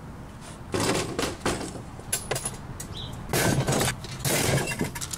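Broken plastic and glass pieces from a stripped flat-screen TV clattering into a plastic garbage can, in several bursts with scattered clinks between them.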